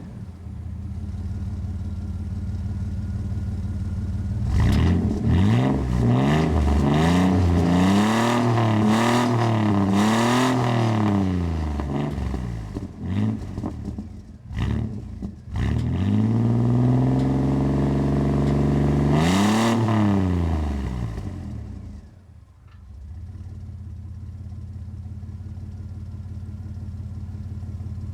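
2001 Chevrolet S-10 pickup's engine exhausting through a Cherry Bomb muffler with a side exit and no tip, idling and then revved in a run of quick blips, with one longer rev and fall about two-thirds of the way through before it settles back to a steady idle.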